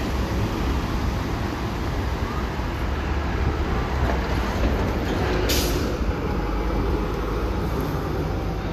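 City street traffic: a steady low rumble of passing vehicles, with one short sharp hiss about five and a half seconds in.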